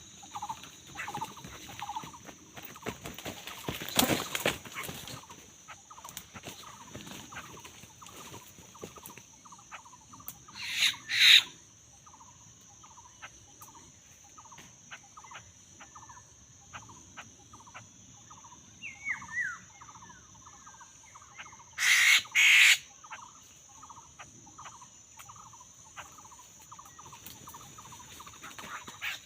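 A bird repeating a short call about twice a second over a steady high insect drone, with three brief loud noisy bursts spread through.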